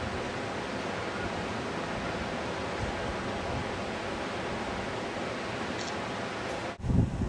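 A steady, even rushing noise of open outdoor air, with no distinct events. Near the end it cuts off abruptly and gives way to louder, gusty wind buffeting the microphone.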